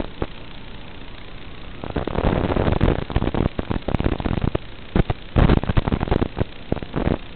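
Analog FPV video-link audio: a steady hiss broken by loud, irregular bursts of static crackle from about two seconds in until near the end, as the radio signal breaks up.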